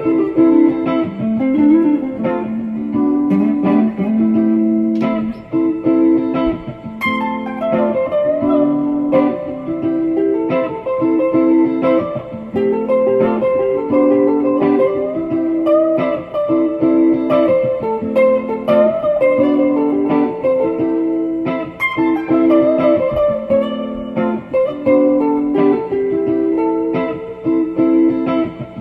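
Background music: guitar picking a repeating pattern of plucked notes.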